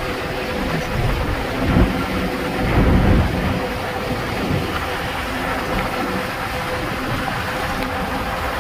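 Wind buffeting the microphone of a moving vehicle, over the steady rumble of its engine and tyres on the road, with a faint steady whine; the wind surges about 2 and 3 seconds in.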